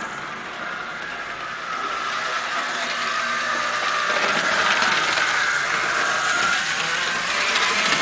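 Mantua Tyco HO-scale Santa Fe model locomotive running on the track: a small electric motor's whine with wheel and gear noise that wavers in pitch and grows louder from about two seconds in as the locomotive comes past.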